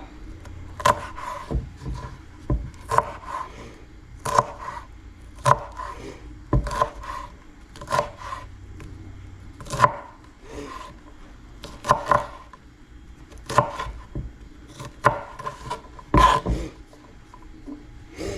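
Kitchen knife slicing a jalapeno pepper on a cutting board: a string of separate knife strokes knocking on the board, roughly one a second, with some rubbing and scraping between them.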